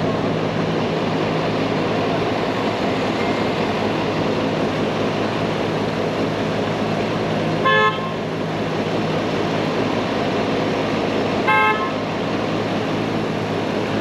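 Two short car-horn toots about four seconds apart, over steady street traffic noise.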